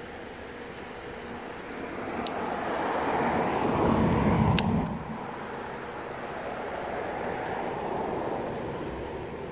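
Road traffic passing near the water: a rushing vehicle noise swells to a peak about four seconds in and drops off suddenly, then a softer second swell follows. Two sharp clicks are heard, the second near the peak.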